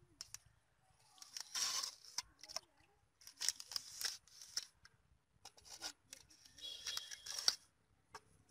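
A large knife blade cutting and scraping into wet soil and grass roots, in three bouts of quick short strokes with brief pauses between.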